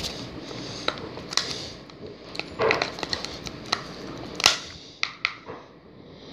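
Slime of glue and Tide activator being stirred in a container: irregular clicks, taps and short scrapes of the utensil against the container, with sticky squishing.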